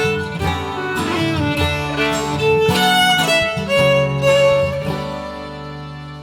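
Instrumental break of a folk song: a fiddle plays the melody over acoustic guitar accompaniment, easing off toward a held note near the end.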